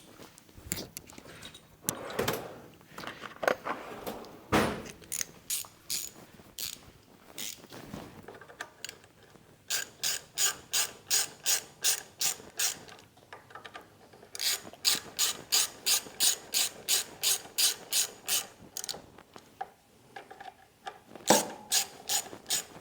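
Hand ratchet tightening carburetor mounting bolts on a small engine: scattered knocks and clicks at first, then runs of evenly spaced ratchet clicks, about four a second, with short pauses between them as the bolts are run down snug.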